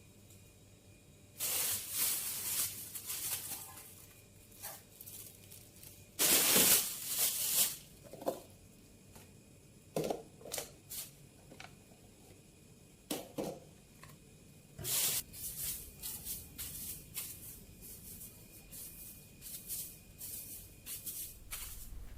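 Intermittent rustling, scraping and light knocks of household things being handled, a dozen or so separate bursts with short pauses between, the loudest about a second and about six seconds in.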